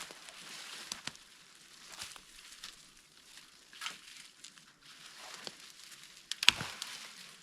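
Dry wood crackling and snapping in scattered clicks, with one louder, sharper crack about six and a half seconds in.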